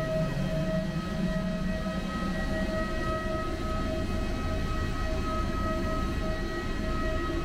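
Jet aircraft noise on an airport apron: a steady high whine over a low rumble.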